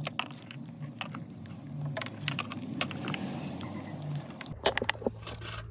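Electrical tape being unwound from its roll and wrapped around a rubber door wiring grommet, with irregular rustles and clicks of handling.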